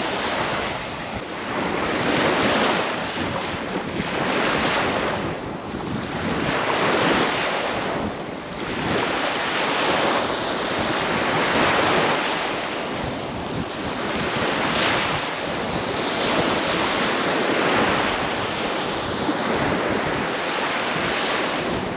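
Sea surf breaking on a sandy beach, the wash of the waves swelling and easing every few seconds.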